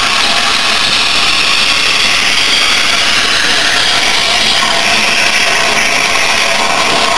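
Steam locomotives led by LNER A1 Pacific 60163 Tornado rolling slowly past close by, giving a steady loud hiss of steam and running noise with no distinct exhaust beats.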